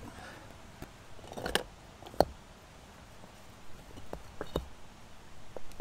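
Close handling of a small paper geocache logbook: a brief rustle, then a sharp click about two seconds in, followed by a few light ticks and taps.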